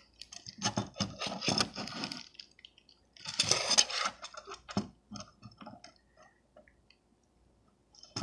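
Hands handling a plastic Transformers toy close to the microphone: clicks and rubbing rustles, loudest a little past three seconds in, then a few light clicks before it goes nearly quiet.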